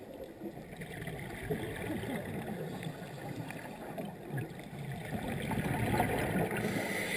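Underwater noise picked up through a dive camera's housing: low gurgling and rushing of scuba exhaust bubbles, getting somewhat louder toward the end.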